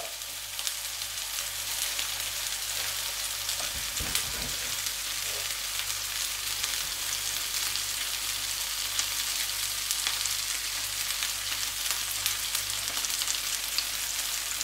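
Mince burger patty frying in a splash of hot oil in a frying pan, a steady sizzle with fine crackling as the first side browns.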